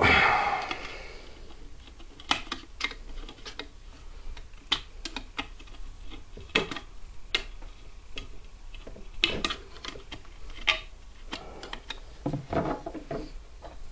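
Irregular small metallic clicks and taps as a screwdriver and steel parts knock against an M14-type rifle's receiver while a small part is pried out, with a louder clatter right at the start.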